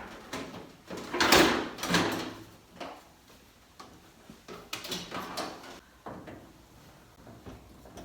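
Knocks, clicks and scraping from hands and tools working on the parts of an opened microwave oven, loudest in a burst of rattling about a second in and another around five seconds in.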